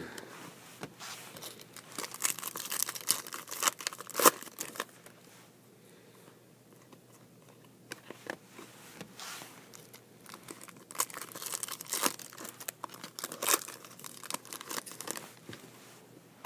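Foil trading-card pack wrappers crinkling and tearing while the stiff chrome cards are handled. It comes in two busy spells of short crackles, the first from about two seconds in, the second from about eleven seconds in, with a quieter stretch between.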